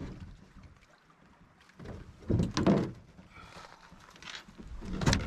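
A wooden canoe being lowered into the lake at a rocky shore: the hull knocks and scrapes and the water sloshes, in a burst about two seconds in and again near the end.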